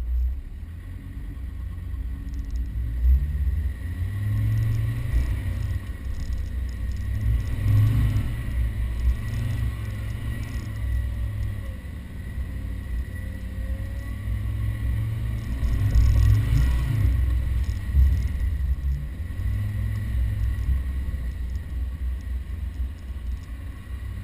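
Land Rover Defender driving over sand dunes, its engine and running gear heard from a bonnet-mounted camera as a low rumble that swells and eases with the throttle, with a few sharper jolts along the way.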